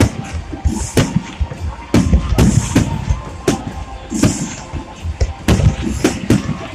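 Fireworks display: an irregular series of loud bangs from bursting shells, about one a second, with patches of high crackling from crackle-effect stars between them.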